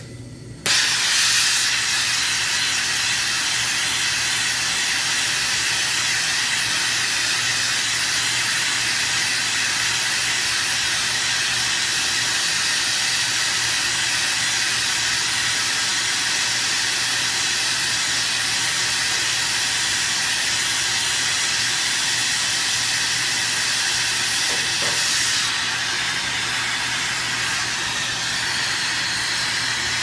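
TurboTorch brazing torch flame hissing steadily as it heats a steel-to-copper tube joint for brazing. It starts abruptly about a second in and gets a little quieter from about 25 seconds.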